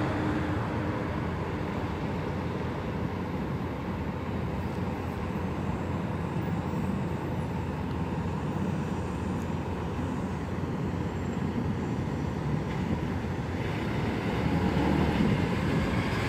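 Steady rumble of motor vehicles with road noise, growing slightly louder near the end.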